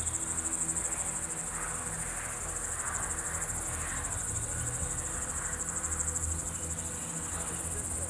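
Crickets chirring in a steady, high-pitched trill, with a faint low hum underneath.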